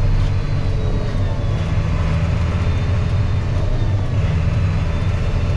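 1995 John Deere 8300 tractor's six-cylinder diesel engine running steadily while driving, heard from inside the cab as a low, even drone.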